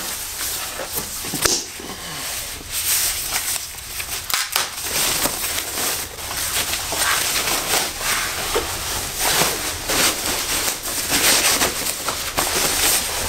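Plastic packaging bag crinkling and rustling as it is handled and pulled off a boxed subwoofer, with irregular crackles throughout.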